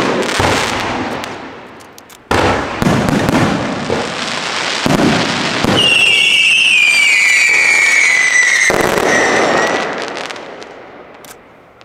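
Aerial fireworks shells bursting in quick succession with crackling, and a long whistle falling in pitch from about six seconds in. The noise fades away near the end as the show finishes.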